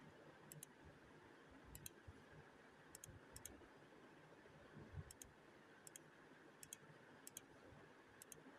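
Near silence: faint room tone with about nine light, high-pitched double clicks at uneven intervals.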